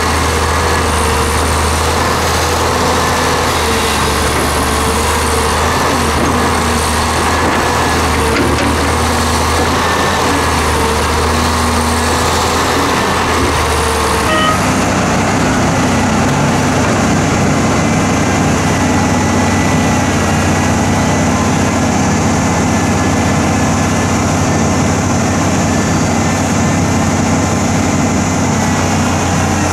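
Diesel engine of a Hyundai Robex crawler excavator working as it loads soil into a dump truck, its low steady note swelling and easing with the work. About halfway through the sound changes to a different, steadier heavy-engine drone, that of the HOWO dump truck.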